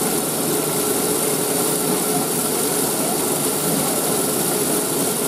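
Cotton candy machine running: a steady mechanical hum from its spinning head, with a high whine over it.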